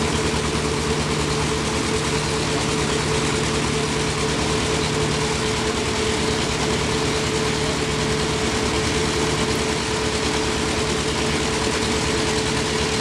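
Boat engine running steadily at idle: a constant low drone with a steady hum-like tone above it.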